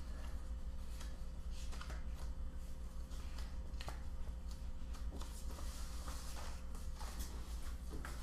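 Photographs and papers being handled and sorted through: scattered light paper rustles and small taps over a steady low hum.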